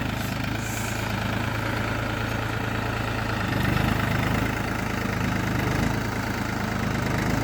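New Holland 4710 tractor's three-cylinder diesel engine running steadily under load while pulling a plough in four-wheel drive, swelling slightly about three and a half seconds in.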